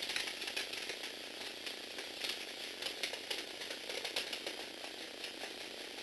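Lego Technic 8043 motorized excavator running, its electric motor driving plastic gears with a rapid, irregular clicking rattle.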